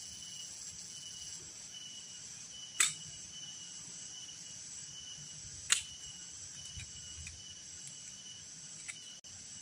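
A chorus of insects chirping steadily at a high pitch, with two sharp clicks, the first about three seconds in and the second about three seconds later, and a few fainter ticks after them.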